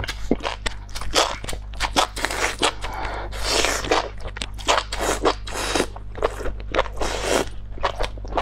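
Close mouth sounds of eating spicy enoki mushrooms: the strands slurped in and chewed, with many quick, sharp crunches and a couple of longer slurps about three and a half and seven seconds in.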